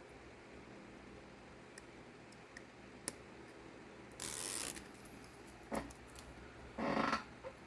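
Backing strip being peeled off thin double-sided adhesive tape: a click, then a short hissing rip and crackly, ratchet-like peeling bursts in the second half.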